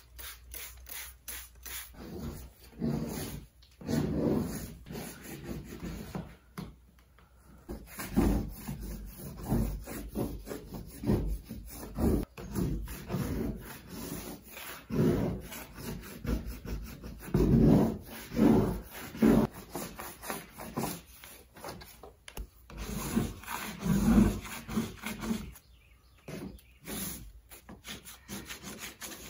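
Paper strip being peeled and torn by hand off a wall, in uneven rasping bursts with short pauses between pulls.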